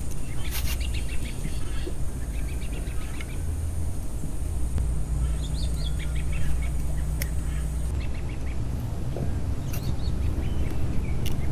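Ducks quacking in several short bouts over a steady low rumble.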